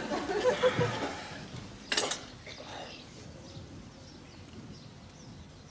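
Laughter trailing off, a single sharp knock about two seconds in, then faint birdsong chirping.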